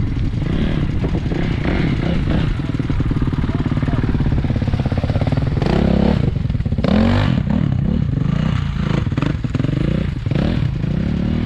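Dirt bike engines running, a close one idling, then revved twice in quick succession around the middle.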